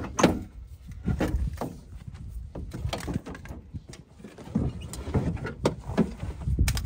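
A series of knocks and clunks, with cables dragging, as a suitcase wire feeder and its leads are pulled out of a welding truck's steel tool compartment.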